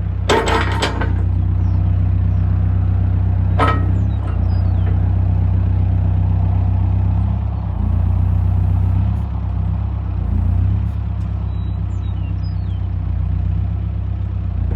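New Holland B95B loader backhoe's diesel engine running steadily, with a short burst of metal clanking about half a second in and a single clank near four seconds in.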